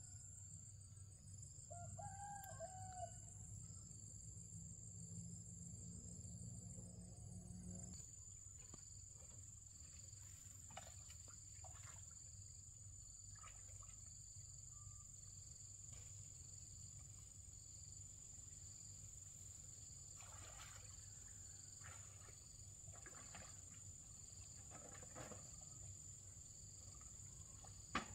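Faint countryside ambience: a steady high insect drone, with a distant rooster crowing once about two seconds in.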